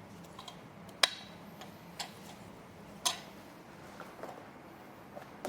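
Sharp clicks and light knocks from chair parts and tools being handled during assembly, three louder clicks about a second apart followed by a few fainter ones.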